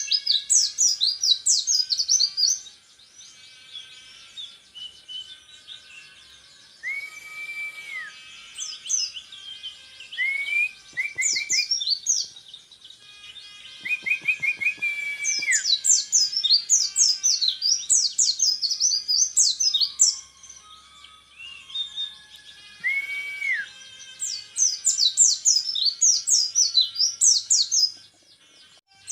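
Orange-headed thrush (peleci) singing in long rapid-fire runs of high, quick notes, the fast 'tembakan' volleys prized in songbird contests. Between the runs come quieter stretches and a few short, level whistled notes lower in pitch.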